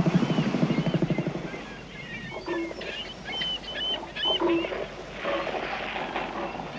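Northern elephant seal bull sounding its threat call, a rapid train of deep pulses lasting about a second and a half, resonated through its trunk-like nose as it does before combat. Quieter high chirps and lower calls follow.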